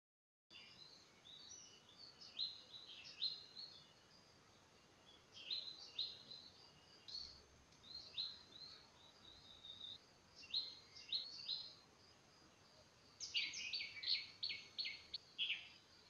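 Yellow-billed babbler calling: short, high notes that slide downward, given in scattered groups, with a quicker run of about six notes near the end.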